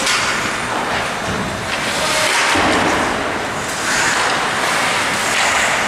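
Ice rink noise during a hockey game: a steady, loud wash of skates on the ice, sticks and the crowd around the rink.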